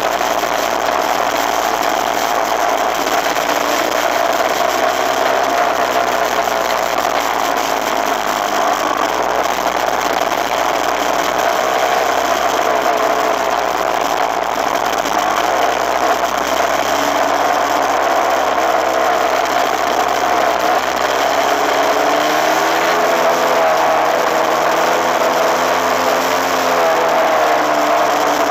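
Suzuki RMX250S 250cc single-cylinder two-stroke dirt bike engine running while under way. Its pitch rises and falls with the throttle, more in the second half.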